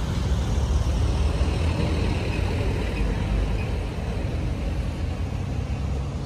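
Engine of a heavily loaded light truck running steadily as it drives past on the road, with motorcycle engines alongside.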